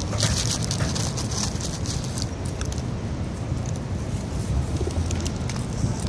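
Steady low outdoor rumble with many scattered sharp clicks and ticks, and a brief hissing rustle about a second in.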